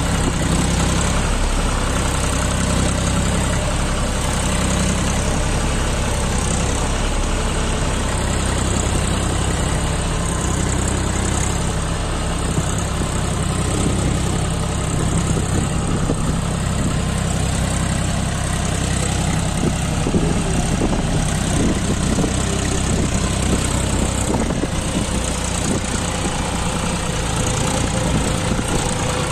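John Deere 5105 tractor's three-cylinder diesel engine running steadily under load, pulling a fully loaded trolley of soil.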